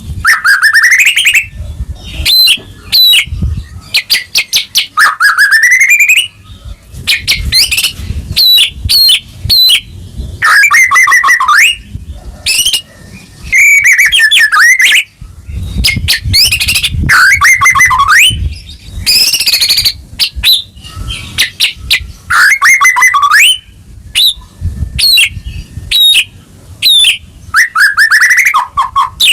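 White-rumped shama (murai batu) singing loudly and without a break: phrase after phrase of rising whistles mixed with fast, rattling rapid-fire notes, each phrase about a second or two long.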